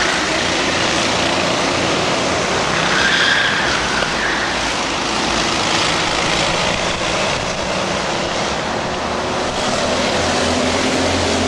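Engines of several Prokart racing karts running at race speed as a pack goes through the corners. The sound is steady and dense, with no break.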